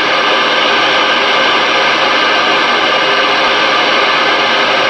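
Galaxy DX-979F CB radio receiving on channel 19: its speaker gives a loud, steady static hiss with faint steady tones in it.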